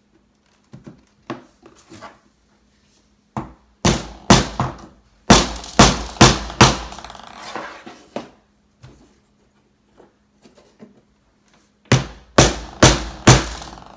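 Hammer driving short nails into the thin wooden stands of a craft table tennis kit: a few light taps, then runs of sharp blows, several quick strikes a few seconds in and four more near the end.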